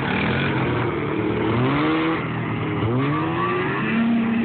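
A two-stroke Yamaha Exciter II snowmobile and a 4WD ATV running, their engines revving up and down several times, then one holding a steady note near the end.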